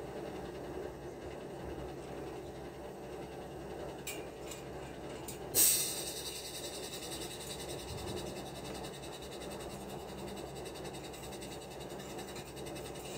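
Steady construction-site background noise with a few light clicks, and one sharp knock about halfway through, after which a faint hiss stays on.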